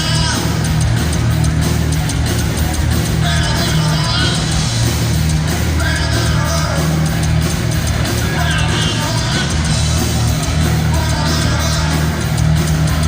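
Heavy metal band playing live: distorted electric guitars, bass and drums, with singing over them.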